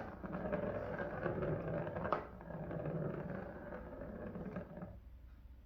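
A cat's spinning toy whirring after the cat has batted it, fading gradually and stopping about five seconds in, with a sharp tap about two seconds in.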